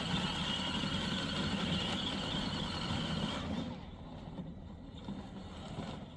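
24V kids' electric ride-on car driving, its motors and gearboxes giving a steady high whine over a low rumble. The whine cuts out a little past halfway and leaves a quieter rumble.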